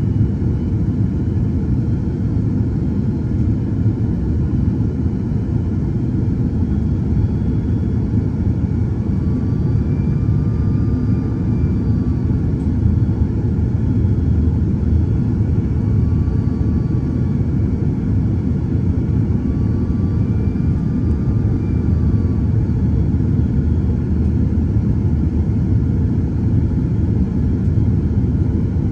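Steady low rumble of engine and airflow noise inside the cabin of an Airbus A330-300 airliner in flight. Faint high whistling tones waver slightly in pitch a few times partway through.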